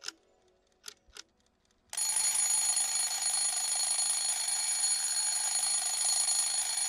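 A few sharp ticks, then from about two seconds in a loud, continuous bell ringing with a steady, even ring.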